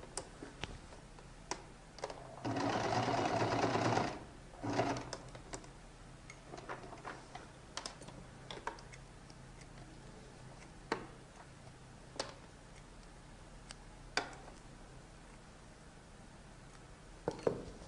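Domestic electric sewing machine stitching a buttonhole in one run of about a second and a half, then a brief second burst. Scattered clicks follow, with a few snips of scissors trimming the threads near the end.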